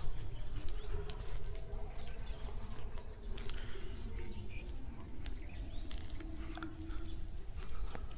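Wind rumbling on the microphone and leaves rustling with scattered light ticks. Near the middle, a bird gives one long high whistle that slides down in pitch.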